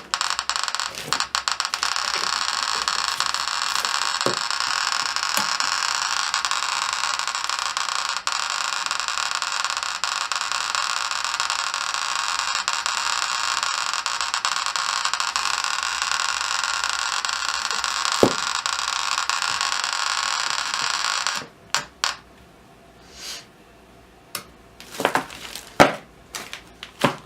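Eberline E520 Geiger counter's SK-1 clicker clicking so fast that the clicks run together into a steady noise, with the probe shield open on uranium ore to pick up beta as well as gamma radiation. About 21 seconds in it cuts off suddenly, leaving a few separate, scattered clicks.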